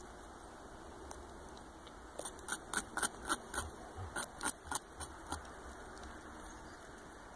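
Young North American beaver gnawing bark off a branch with its incisors: a run of about a dozen sharp crunching bites, about three a second, starting about two seconds in and stopping a little after five seconds.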